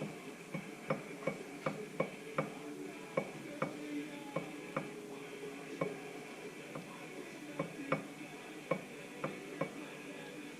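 Light, sharp metallic clicks at an irregular pace, about one or two a second, with a quieter gap in the middle: a Ford 9-inch ring gear being rocked against its pinion through the gear lash while backlash is checked at different spots around the gear.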